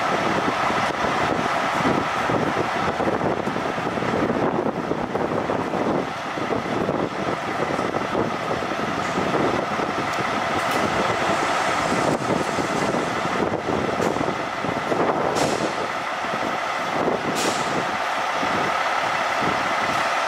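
Diesel engines of fire trucks running steadily as the apparatus prepares to roll out. Short hisses of released air-brake pressure come about ten seconds in and twice more near the end.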